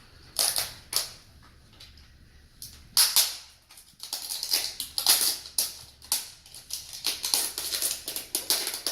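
Crinkly tearing and rustling of an LOL Surprise Under Wraps capsule's wrapping as it is unzipped and pulled open. There are a few separate rips at first, then a quick run of them through the second half.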